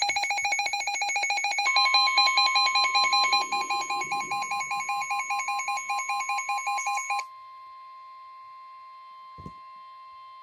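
Electronic emergency alert tones: a rapid warble of alternating pitches, with a steady high tone joining about two seconds in. About seven seconds in the warble stops, and a fainter steady tone chord holds to the end.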